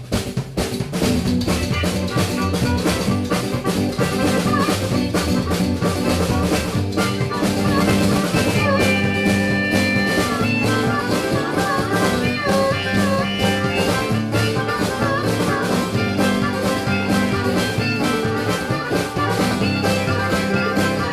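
Live band playing an instrumental break, the drum kit keeping a steady beat under the accompaniment. A lead melody of held and moving notes comes in about eight or nine seconds in.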